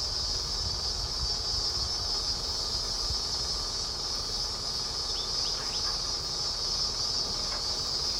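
Steady high-pitched drone of an insect chorus, unbroken throughout, over a low rumble.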